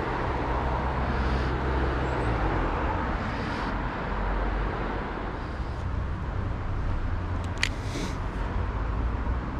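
Steady outdoor background noise with a low, unsteady rumble, with one sharp click about three-quarters of the way through.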